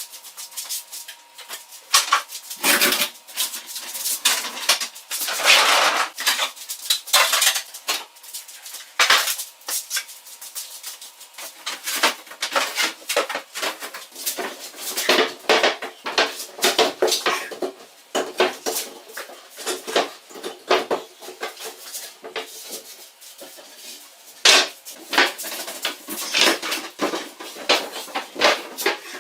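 Irregular clinking and clattering of small hard metal objects being handled, in quick uneven runs of knocks.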